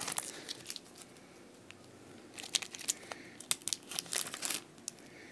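Foil booster-pack wrapper of a Pokémon trading card pack crinkling as it is handled and crumpled: a few crackles at first, a quieter spell, then a denser run of crinkling from about halfway until shortly before the end.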